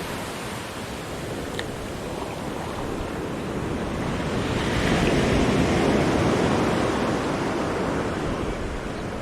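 Wind blowing across the microphone over the wash of sea waves, a steady rushing noise that swells louder around the middle.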